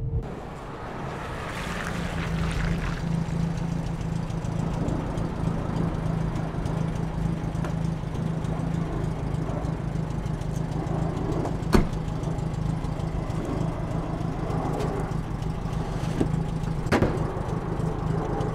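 Old saloon car's engine idling steadily with a low, even hum. A car door shuts with a sharp knock about two-thirds of the way through, and the boot lid shuts with another near the end.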